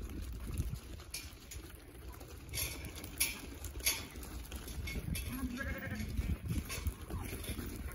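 A flock of ewe lambs trotting over dirt, hooves scuffing, with one lamb bleating briefly about five and a half seconds in.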